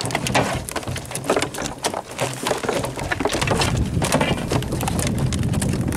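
A rapid, irregular run of knocks and slaps on a fibreglass boat as a freshly landed sailfish thrashes on the rope pile in the bottom of the boat.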